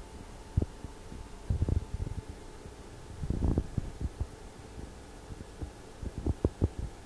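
Handling noise on a phone's microphone: a handful of dull, low thumps and rumbles at irregular intervals, over a faint steady background.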